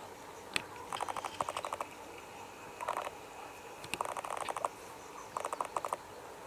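Wetland animal calls: short rattling series of rapid pulses, heard five times or so, with one sharp click about half a second in.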